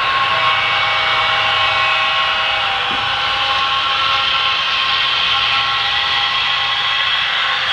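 HO-scale model Union Pacific coal train running: a steady mechanical drone with several steady whining tones layered in it and little bass.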